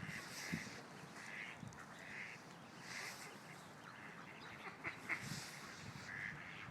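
Ducks quacking faintly, short calls repeated every second or so.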